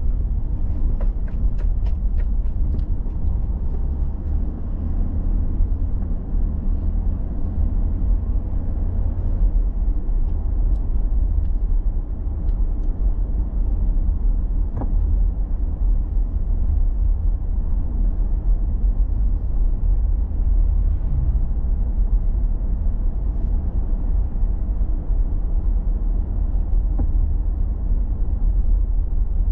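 Car driving steadily, with a low, even road and engine rumble heard from inside the car through a dashboard camera. A few light clicks come in the first few seconds and again about halfway through.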